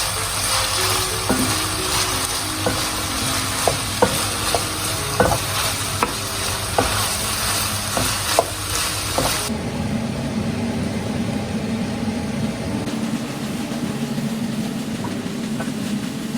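Food sizzling as it fries in a pan while a utensil stirs it, knocking sharply against the pan every second or so. The sizzle cuts off suddenly partway through, leaving a steady low rumble.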